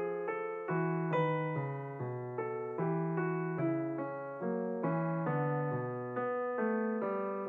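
Background piano music: a steady run of notes struck one after another, each dying away before the next.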